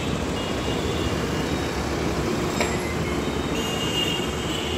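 Steady street traffic noise from motorbikes, scooters and rickshaws on a busy road, with a few brief high tones near the end.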